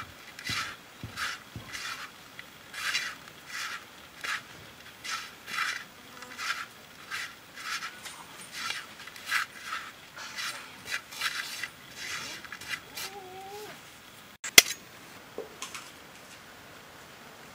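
Hands rubbing and mixing dry ground spice masala and salt in a clay pot: a soft, scratchy rustle about twice a second. Near the end comes one sharp tap as a knife cracks an egg shell.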